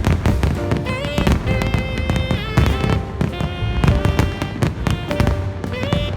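Fireworks going off in rapid succession, sharp bangs and crackling, over loud music with long held notes.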